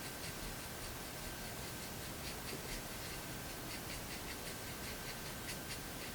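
Small paintbrush working dark red-black craft paint, faint irregular scratchy ticks and dabs over a steady hiss.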